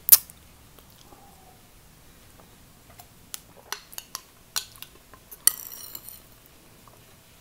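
A ceramic mug knocks down onto a wooden tray at the start. Then a metal teaspoon clinks several times against a glass dessert cup while scooping out curd mousse, with a short scrape about five and a half seconds in.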